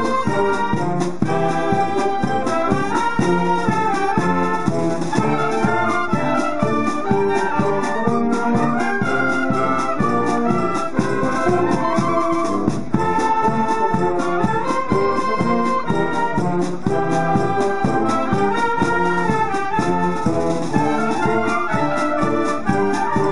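Amateur wind band (harmonie) playing a piece together: clarinets, saxophones and brass including trumpets and a sousaphone, loud and steady.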